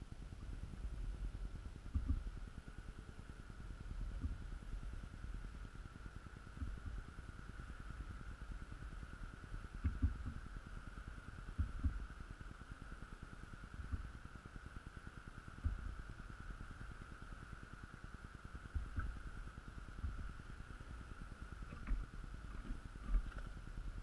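Great spotted woodpecker pecking at a fat-filled jar feeder: dull low knocks, single or in pairs, every few seconds, over a steady faint high hum.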